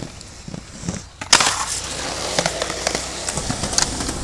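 Inline skates landing on a concrete skatepark ledge about a second in and grinding along it: a sudden hit, then a steady scraping slide of the skate frames on the ledge.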